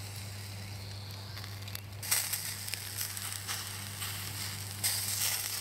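Chicken and a sausage sizzling on a stainless steel grill over hot lump-wood charcoal, with small crackles. The sizzle swells about two seconds in and again near the end as the chicken is lifted and turned with tongs, over a steady low hum.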